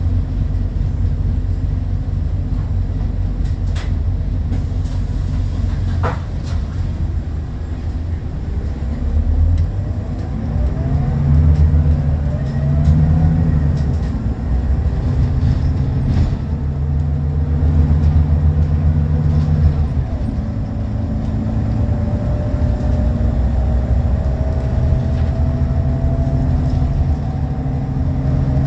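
Onboard sound of a Scania L94UB bus under way: the low running note of its nine-litre five-cylinder diesel rises and drops back several times as it pulls along, with a thin rising whine above it. A couple of sharp clicks about four and six seconds in.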